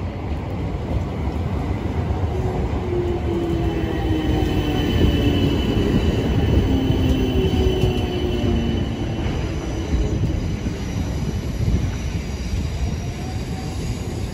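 Class 455 electric multiple unit moving past along a station platform: a steady low rumble of wheels and traction equipment, loudest in the middle, with faint tones sliding slowly down in pitch.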